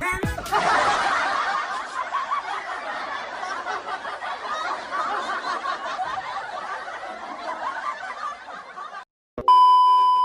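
A crowd of people laughing together for about nine seconds, then a sudden brief cut-out followed by a loud steady electronic beep near the end.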